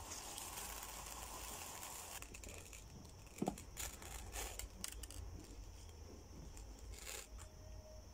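Uncooked rice rustling and shifting in a clear plastic tub as a cloth-covered camera is dug out of it, with light clicks and knocks of the hard plastic. A sharper click comes about three and a half seconds in.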